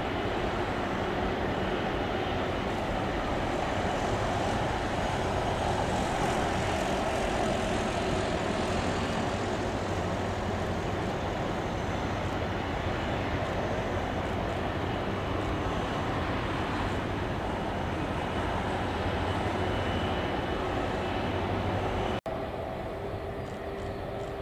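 Jet engines of an Air China Airbus A330 running steadily at low power as it taxis. About 22 seconds in, the sound drops abruptly and goes on more quietly.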